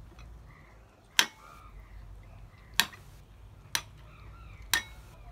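A metal spoon clinks against a glass bowl four times while scooping food, each a sharp click, the first two with a short ringing after.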